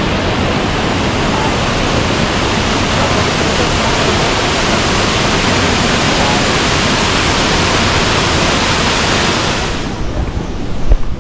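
Devi's Fall waterfall: a loud, steady rush of falling water. It drops away sharply about ten seconds in, and a brief low knock follows just before the end.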